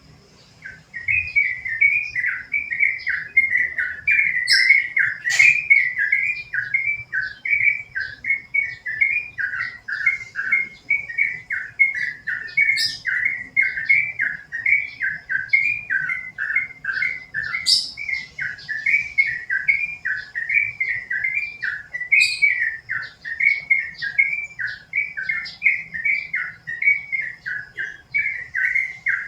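Yellow-vented bulbul (trucukan) singing a long, fast, unbroken run of repeated bubbling phrases, starting about a second in. A few sharp clicks are heard over the song.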